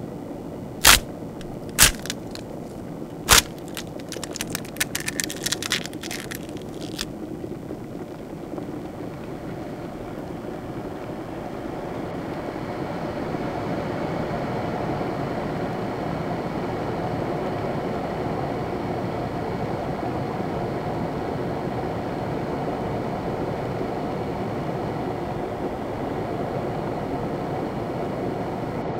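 Horror-film sound design: three sharp cracks about a second apart, then a quick run of smaller crackles, giving way to a low, even drone that swells and then holds steady.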